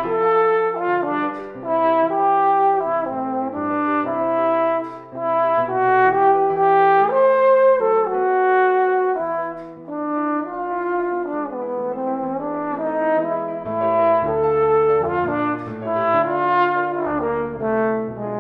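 Tenor trombone playing a lyrical, legato classical melody, with some notes slurred into each other, over piano accompaniment.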